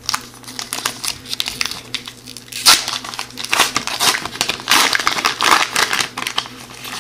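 Shiny wrapper of a 2015-16 O-Pee-Chee hockey card pack being torn open and crinkled by hand: a busy run of sharp crackles and rips, the loudest a single snap near three seconds in.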